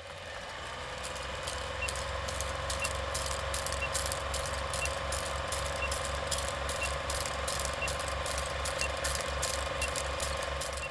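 Film projector running: a steady whirr with rapid mechanical clicking of the film advance and a low pulsing rhythm, with a faint short high beep about once a second over the countdown leader.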